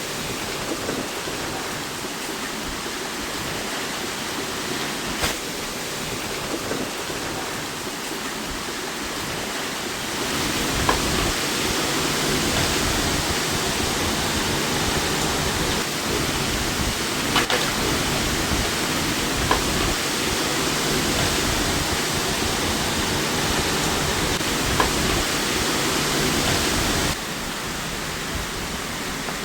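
Heavy rain and wind in a storm: a steady rushing hiss with a few scattered sharp ticks. It grows louder about ten seconds in and drops back shortly before the end.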